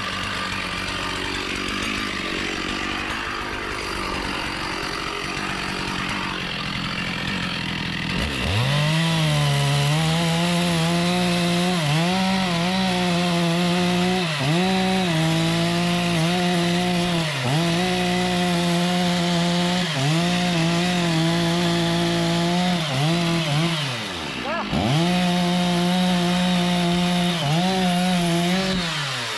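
Two-stroke chainsaw cutting into a teak tree. After about eight seconds of lower running it revs up to a high, steady whine, with its pitch dipping briefly again and again. Around twenty-four seconds in it drops off, then revs back up before falling away at the end.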